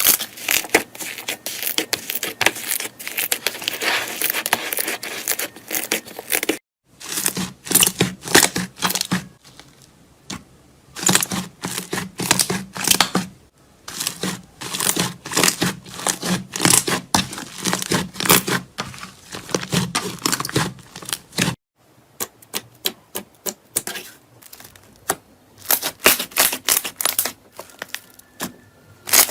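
Slime being squeezed and pressed by hand, giving dense crackling and clicking in bursts, broken by abrupt cuts between clips.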